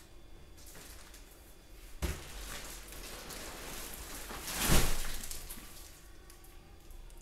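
Rustling and crinkling of a large plastic-wrapped parcel being handled, with a knock about two seconds in and a heavy thud near the middle as the bale is tipped over onto the floor.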